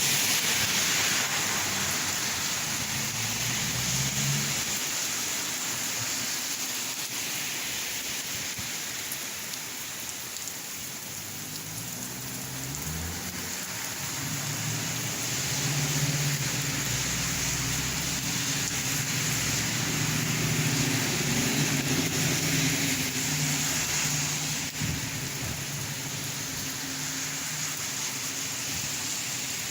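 Steady rain falling, an even hiss throughout. A low rumble builds in the middle and fades again.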